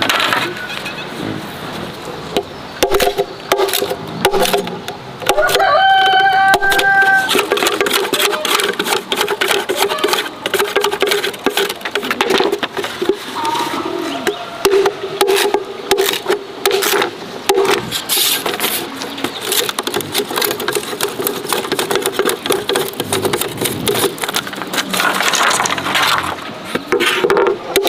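Repeated sharp knocks and cracks of green bamboo culms being split and handled with a cleaver. A rooster crows once about six seconds in, with chickens in the background.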